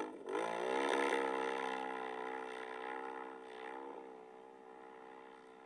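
Can-Am Renegade ATV's V-twin engine revving hard as it pulls away through deep snow in two-wheel drive. The revs climb sharply about half a second in, hold high and steady, then fade as the quad moves off.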